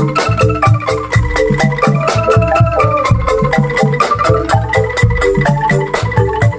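A bamboo angklung busking ensemble playing an upbeat dangdut koplo tune: shaken angklung and xylophone-like gambang notes over a steady bouncing bass line and a quick, even beat of kecrek strokes.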